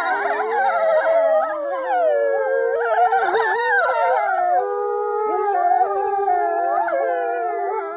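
Several dogs howling together: long, overlapping howls at different pitches that slide up and down and waver as they go.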